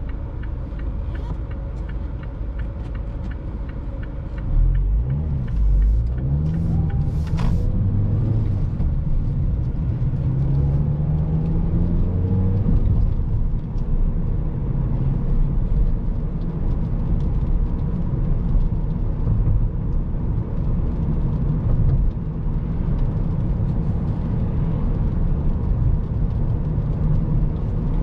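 A Mazda 5's 2.0-litre four-cylinder petrol engine heard from inside the cabin over tyre and road noise. About five seconds in it gets louder as the car accelerates, the engine note rising twice with a gear change between and another drop around thirteen seconds in, then it runs steadily at cruising speed. A short sharp click comes about seven seconds in.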